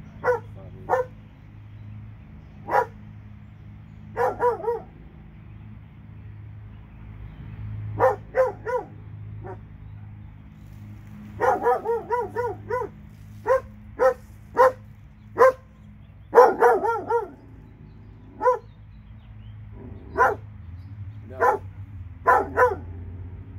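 Dog barking repeatedly: single barks and quick runs of several barks, with pauses of one to a few seconds between them. A steady low hum runs underneath.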